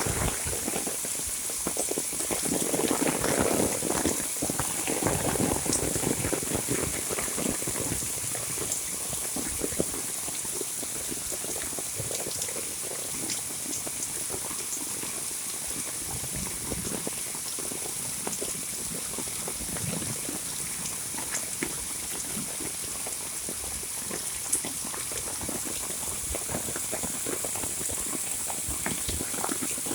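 Heavy monsoon rain falling: a dense, steady patter of many drops, a little heavier for a few seconds near the start.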